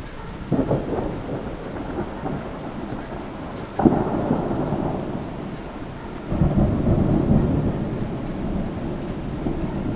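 Thunder rumbling in three peals over steady rain. The peal about four seconds in opens with a sharp crack and is the loudest; the others swell in about half a second and six seconds in, and each rolls away slowly.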